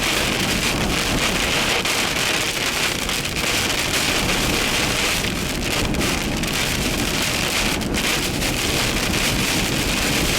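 Heavy rain from a severe thunderstorm pelting down hard and steadily: a dense, unbroken patter of many drops.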